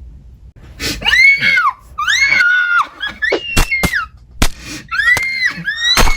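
A woman screaming in terror, about five high-pitched screams one after another, with a few sharp knocks in between.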